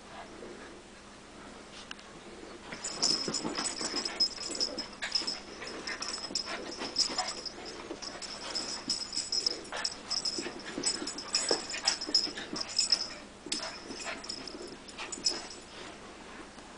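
Small white dog playing, making quick, irregular spurts of huffing and snuffling sounds, many of them with a thin high whine.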